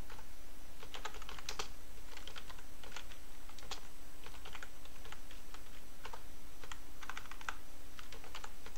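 Computer keyboard typing: irregular runs of keystrokes with short pauses between them, over a faint steady hum.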